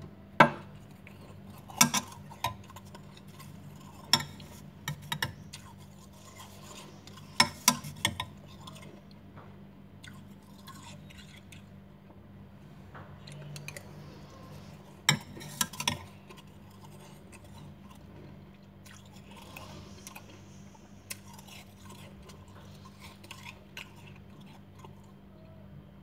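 Metal spoon clinking against a glass bowl while scooping powdery freezer frost: sharp clinks in small clusters, loudest in the first few seconds and again about halfway through, over a steady low hum.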